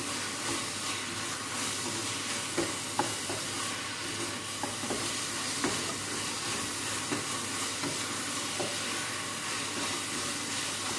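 A spoon stirring spaghetti sauce in a stainless steel saucepan on the stove, with irregular scrapes and taps against the pot over a steady sizzle from the pan.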